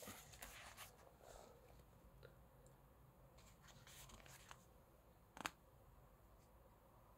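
Faint rustling of photobook pages being handled, with one sharp click about five and a half seconds in.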